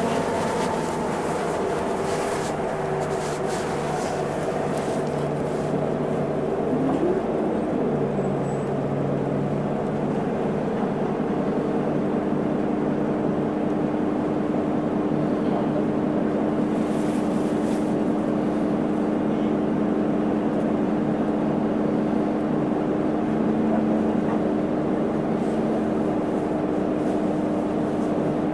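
Onboard sound of an Isuzu Erga non-step city bus: its diesel engine and drivetrain hum with road noise, the pitch falling over the first several seconds and settling into a steady drone from about eleven seconds in.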